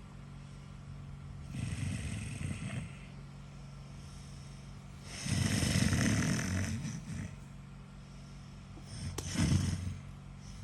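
A man snoring loudly in his sleep: three rasping snores, the second, about five seconds in, the longest and loudest.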